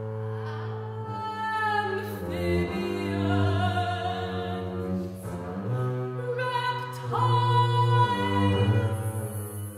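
Soprano singing over a bowed double bass in contemporary classical music. The bass holds long low notes while the voice slides between pitches, then sustains a loud high note about seven seconds in.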